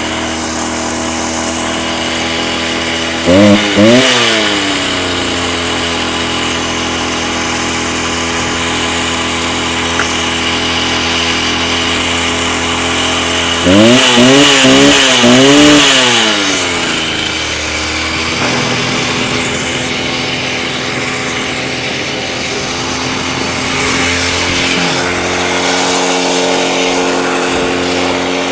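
Stihl TS350 Super cut-off saw's two-stroke engine idling, blipped to high revs briefly about three seconds in and revved for a few seconds around the middle before dropping back to idle. The idle pitch shifts slightly near the end as the freshly rebuilt engine's carburettor is tuned.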